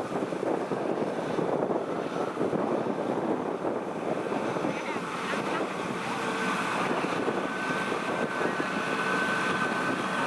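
Kubota DC-70 combine harvester's diesel engine and machinery running steadily, with a thin steady whine joining about six seconds in.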